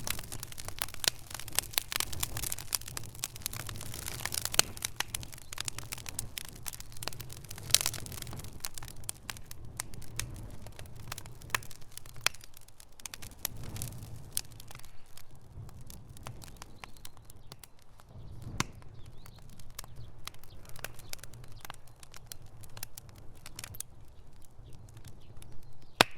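Wood fire crackling: dense sharp pops and snaps over a low steady rumble of burning, busier early on and thinning to scattered pops in the second half.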